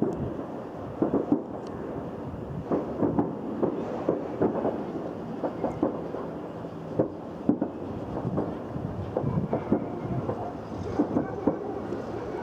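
Fireworks set off by an explosion, going off in a dense, irregular series of bangs and pops over a continuous rumble.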